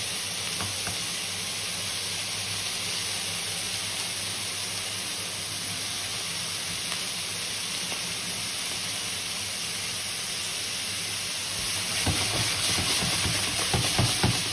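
Thin slices of meat searing in oil in a stainless steel pan, a steady sizzle and hiss. Near the end it grows louder and choppier as the pan is shaken on the hob.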